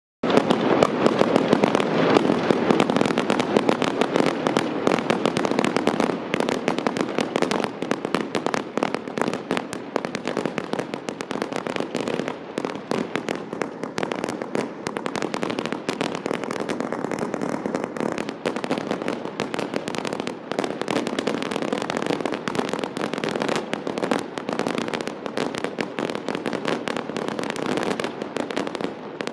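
Fireworks castillo: a dense, unbroken run of bangs and crackling from aerial shells and ground fountains, loudest in about the first six seconds.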